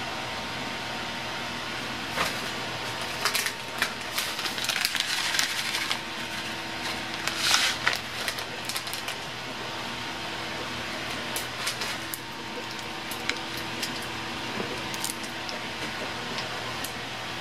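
Roasted sesame seeds being shaken out of their container onto a bowl of cold noodles. It comes as a cluster of small clicks and rattles between about two and nine seconds in, the loudest near the middle, over a steady room hiss and hum.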